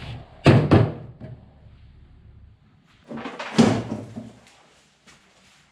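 Handling clunks: two sharp knocks close together, then another cluster of knocks about three seconds in.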